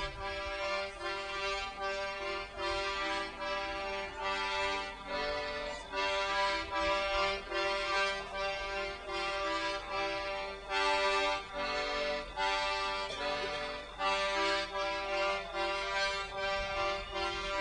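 A free-reed instrument playing a tune in held, reedy chords, swelling and falling in short pulsing phrases.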